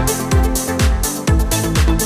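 Electronic dance music: a steady four-on-the-floor kick drum, a little over two beats a second, under sustained synth chords.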